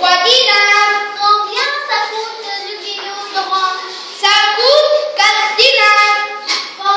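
A child's voice singing unaccompanied, with long held notes that glide up and down in pitch.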